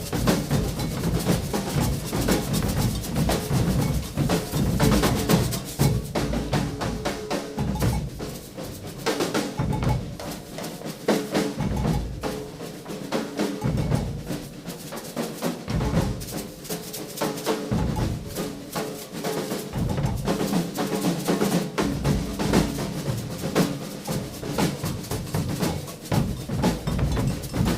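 Maracatu percussion group playing a dense, driving rhythm on alfaia bass drums and snare drums. The deep drums drop out for short stretches partway through, then come back in.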